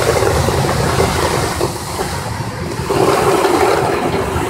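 Popcorn coating machine running: a steady mechanical rumble from the rotating stainless-steel kettle, with coated popcorn tumbling in the drum and pouring out. It dips a little for about a second midway, then comes back up.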